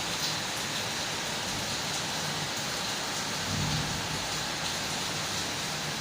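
Steady rain falling, an even hiss with no let-up, with a brief low rumble about three and a half seconds in.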